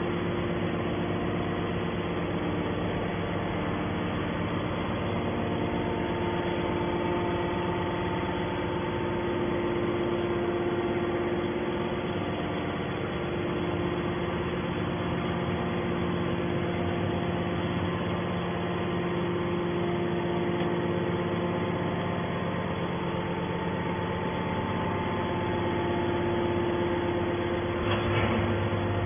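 Hydraulic scrap baler line running: a steady machine hum with several held tones. A brief louder noise comes near the end.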